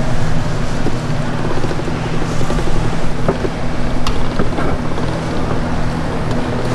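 Steady motor hum of an electric dough-sheet roller making dumpling wrappers, with a few light clicks as the dough is worked.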